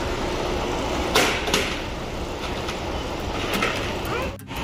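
Shopping cart taken from the cart area and rolled: two loud clanks about a second in, then a steady rolling rattle with a few lighter knocks.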